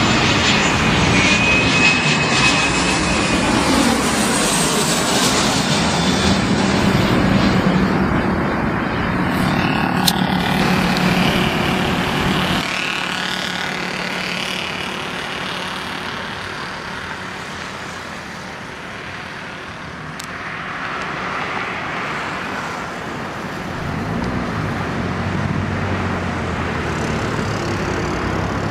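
Boeing 737 jet airliner's engines passing low overhead on landing approach, a loud steady rush with a high whine over it. About twelve seconds in the noise drops away as the jet moves off down the runway, then swells again near the end as it lands and rolls out.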